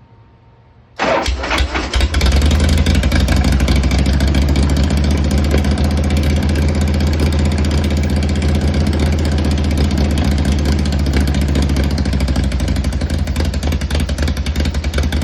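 Harley-Davidson Shovelhead V-twin engine, freshly rebuilt at the top end, starting about a second in and settling into a steady, even idle with the choke held on.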